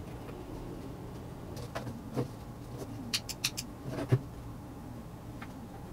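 Scattered clicks and knocks of a rocker switch being handled and pushed into its cutout in an MDF box. A quick run of four sharp clicks comes about three seconds in, and a louder knock follows just after four seconds, over a steady low hum.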